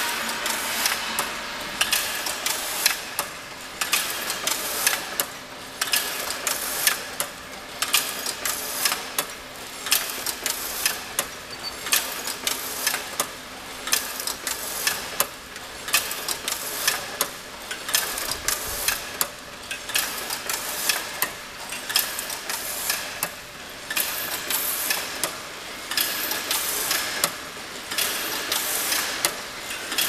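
Crimped wire mesh weaving machine running, its loom mechanism clattering in a steady, even rhythm of sharp metallic clacks as it weaves wire screen mesh.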